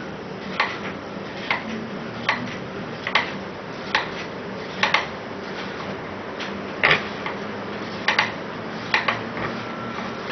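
Hand-cranked metal meat grinder being turned as it grinds scraps of cured silicone rubber into crumbs, giving a sharp metallic click or knock roughly once a second.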